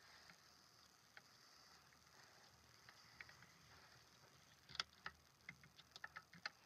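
Faint clicks and taps of small screws and plastic mounting parts being handled at a desk, with a quick run of about ten sharp clicks in the last two seconds.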